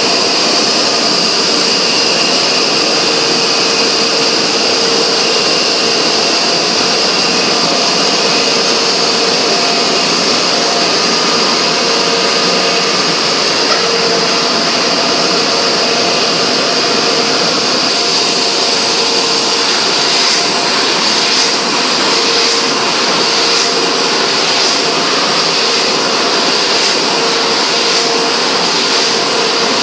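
1985 Heidelberg Speedmaster 102 SP six-colour offset printing press running: a loud, steady mechanical whir with a constant hum underneath.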